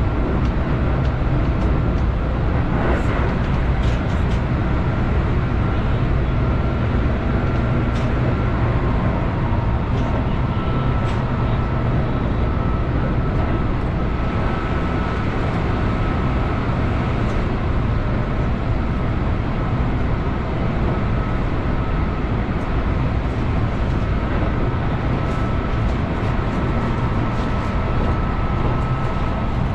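Keihan 8000 series electric train running at speed, heard from inside the car: a steady rumble of wheels on rail with a faint steady whine and a few light clicks.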